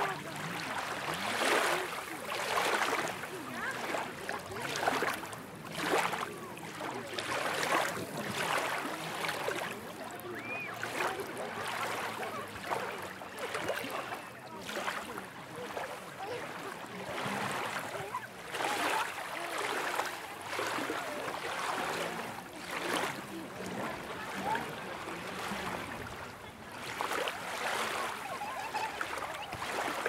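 Busy beach ambience: surf washing onto the shore in uneven surges, under the overlapping chatter of a crowd of bathers.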